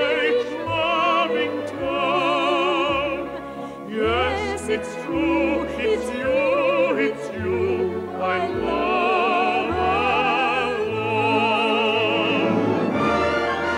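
Operatic singing with a wide vibrato on long held notes, over an orchestra.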